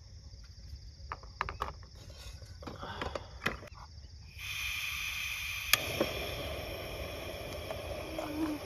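Crickets chirping under a scatter of light clicks and knocks from camp cooking gear being handled. About halfway through a steady hiss starts suddenly, with a sharp click about a second later.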